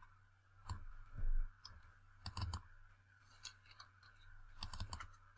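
Computer keyboard keystrokes and mouse clicks: scattered light clicks, bunched into quick runs about two and a half seconds in and again near the end. A dull low bump comes about a second in.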